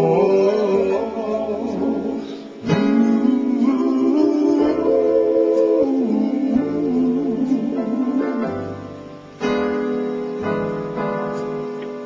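Slow, mellow instrumental music: keyboard chords under a held melody line that wavers with vibrato. New chords are struck about three seconds in and again after about nine seconds, and the music fades near the end.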